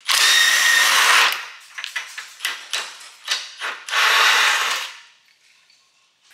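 A power tool runs in two bursts of about a second each, with a string of short metallic knocks and clicks between them.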